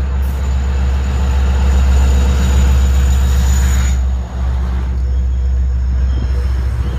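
Diesel-hauled Long Island Rail Road commuter train pulling into a station and passing close by, with the locomotive's diesel engine giving a steady deep drone. A high hiss and whine cuts off suddenly about four seconds in as the locomotive passes, leaving the rumble of bilevel coaches rolling by.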